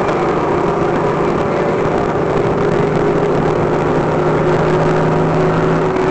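Convertible car driving at highway speed with the top down: a steady engine drone under loud wind and road noise, the engine tone shifting slightly near the end.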